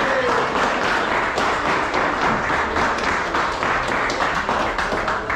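A small group of people clapping and applauding, a dense steady patter of handclaps.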